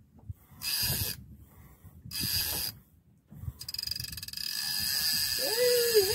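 Fishing reel working in two short bursts, then running steadily with a fast ratcheting rattle from about halfway, as a hooked fish is brought up on jigging tackle. Near the end a brief rising-and-falling voice sound.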